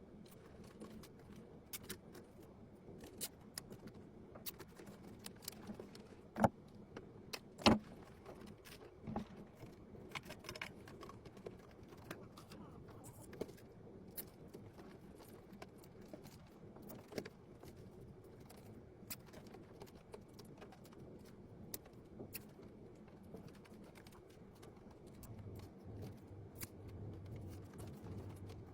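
Scattered small clicks and taps of computer hardware being handled during a PC assembly, with two louder knocks a few seconds in. A low steady hum starts near the end.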